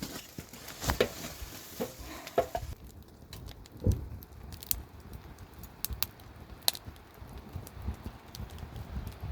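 Scattered light clicks and a few soft knocks, irregular and sparse.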